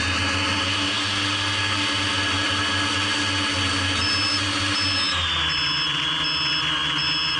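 Quadcopter's electric motors and propellers whining steadily at high throttle as it climbs. About four seconds in, a short high beep starts repeating about one and a half times a second, a low-battery warning, and about a second later the motor pitch drops.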